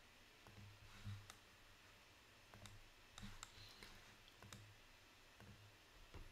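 Near silence broken by a few faint, irregular clicks of a computer mouse and keyboard.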